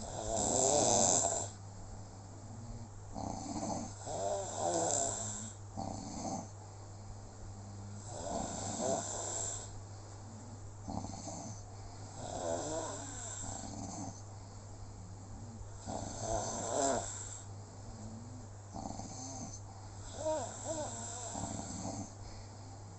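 Snoring in slow, regular cycles: a louder snore about every four seconds, with softer breaths between.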